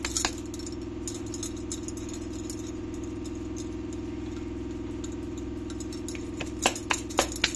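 A steady low electrical-sounding hum, with a few sharp clicks and clinks near the end as bangles on the hands patting out bajra dough knock together.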